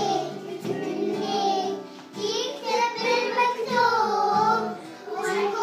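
A group of young children singing a song together, in sung phrases with short breaths between them about two and five seconds in.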